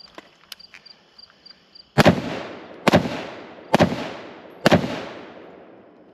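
Four gunshots a little under a second apart, starting about two seconds in, each followed by a long echoing tail.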